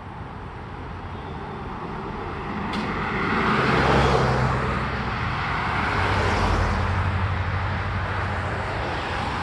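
A passing vehicle, its noise swelling to a peak about four seconds in and again about six and a half seconds in, with a low steady hum.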